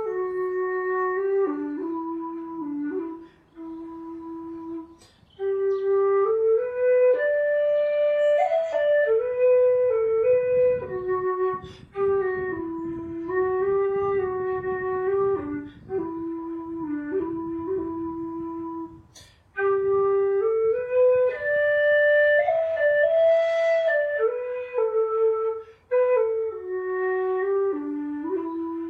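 A slow air played solo on a whistle: a single melodic line of held, pure-sounding notes, broken by short pauses for breath.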